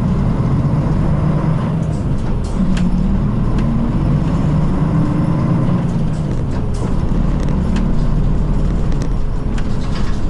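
Nishitetsu city bus heard from inside the cabin while driving: a steady low engine and road rumble with small rattles and clicks from the bus interior.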